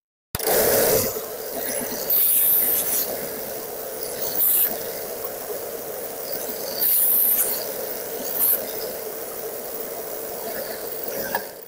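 Canova KNBD305 1-inch belt and 5-inch disc sander with a 1/3 hp motor running steadily, with several short bursts of harsher high hiss as a small wooden piece is pressed against the sanding belt to take off its charred edges.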